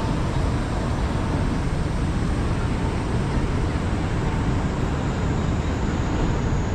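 Steady city street noise: a constant rumble of road traffic with no single event standing out.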